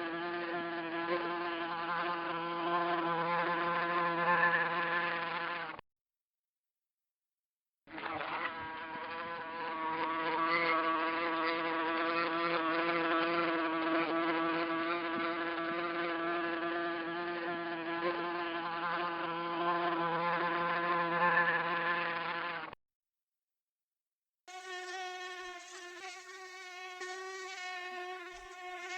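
Mosquito in flight: the steady, high whine of its beating wings, in three stretches broken by two silences of about two seconds, the last stretch a recording whose pitch wavers a little.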